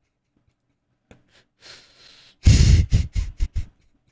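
A man's breathy laughter: a soft breath, then a run of short, loud bursts of laughing through nose and mouth about two and a half seconds in.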